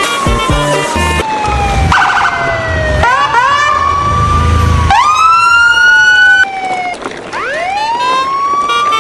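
Emergency-vehicle sirens wailing, several overlapping, each sweeping slowly up and then down in pitch, with a new siren cutting in about three seconds in and another about five seconds in.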